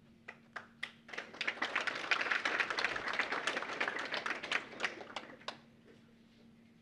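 Audience applauding: a few scattered claps grow into steady applause that dies away about five and a half seconds in.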